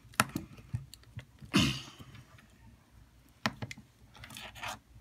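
Scattered light clicks and taps as fingers press a metal watch caseback down onto the watch case against a tabletop, working to snap it shut. A short rustling hiss comes about a second and a half in.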